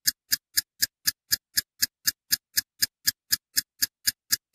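Clock-like ticking sound effect: sharp, evenly spaced ticks about four a second, with dead silence between them.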